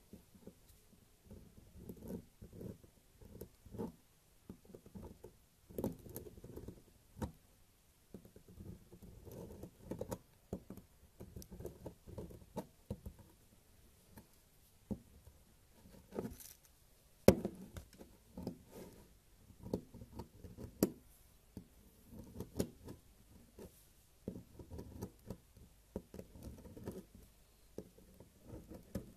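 Knife blade cutting and scraping into a dry, crumbly bar of soap: an irregular run of soft crackling scrapes and crisp clicks as shavings break off, with one sharp snap a little past the middle.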